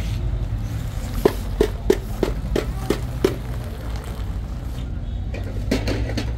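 Quick footsteps on a tiled pavement, about seven steps at roughly three a second, over a steady low street rumble.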